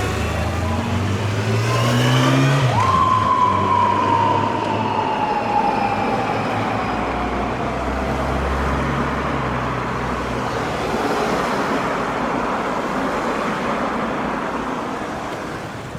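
A police motorcycle's siren gives a single blast that shoots up sharply and falls slowly over about five seconds, a warning for a car that will not stop. Before it, a vehicle engine rises in pitch as it speeds up. Steady road-traffic noise runs underneath.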